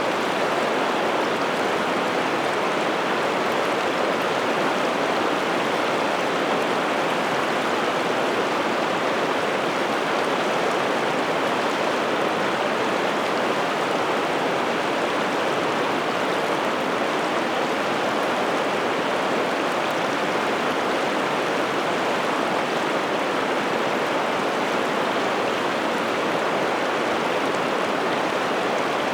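Water of the Piteälven river flowing, a steady unbroken rush.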